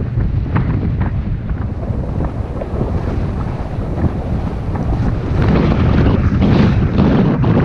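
Wind buffeting the microphone of a camera riding on a moving bicycle, a dense low rumble mixed with many small knocks and rattles from the rough road. It gets louder about two-thirds of the way through.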